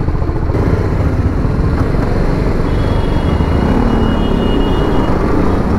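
Bajaj Pulsar 220F motorcycle riding in traffic: its single-cylinder engine runs steadily under a heavy wind rumble on the microphone.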